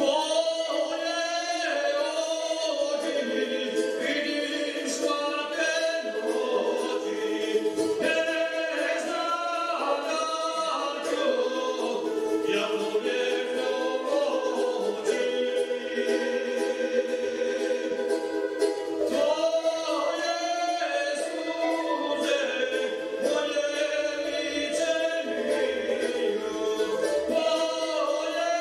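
Serbian traditional folk music on wooden wind instruments: a wandering melody over a steady held drone.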